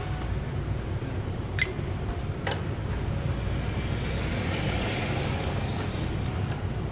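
Steady low rumble in a conveyor-belt sushi restaurant, with a soft whir that swells and fades around the middle, likely the small shinkansen-shaped sushi delivery train running along its rail. Two sharp clicks come in the first half.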